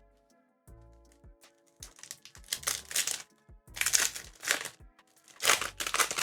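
Foil wrapper of a Pokémon booster pack crinkling as it is handled and opened, in three loud rustling bursts over the second half, with soft background music throughout.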